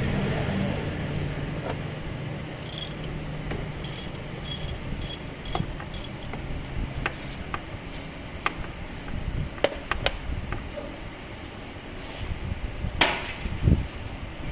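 Metal hand tools working on a scooter's front-fork bolts: a run of about six sharp metallic ticks a few seconds in, then scattered clicks and knocks, with a louder scrape near the end.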